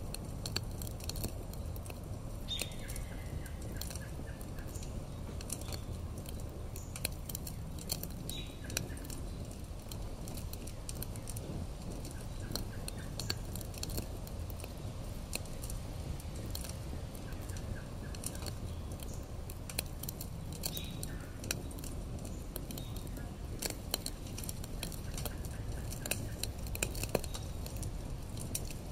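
Wood campfire crackling, with scattered sharp pops over a steady low rumble.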